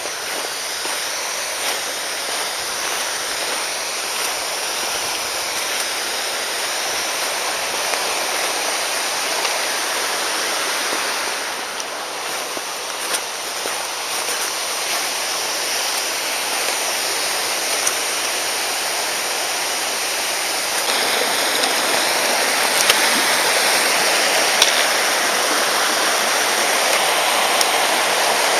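Mountain stream rushing steadily over rocks, a continuous wash of water that grows louder about three-quarters of the way through.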